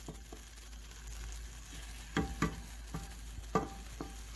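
Raw rice frying in oil in a nonstick pan, stirred with a wooden spoon: a steady sizzle, with the spoon knocking against the pan about five times in the second half. The rice is being sautéed with onion and green pepper before the liquid is added.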